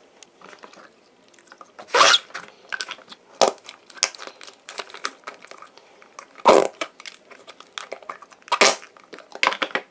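Flarp noise putty squelching as fingers press and squish it into its plastic toilet-shaped container: several short, sudden wet squelches, the loudest about two seconds in, past the middle and near the end.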